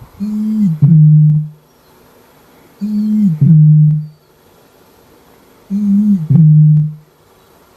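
A bird's low, hooting two-part call given three times, about every three seconds: each call starts on a slightly higher note that drops into a longer, lower held note.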